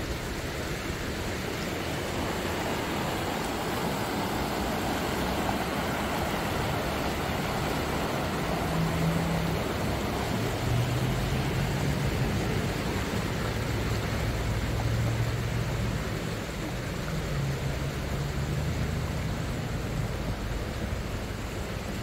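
Steady rush of a shallow, fast river running over riffles. A low vehicle hum joins it from about nine seconds in until near the end.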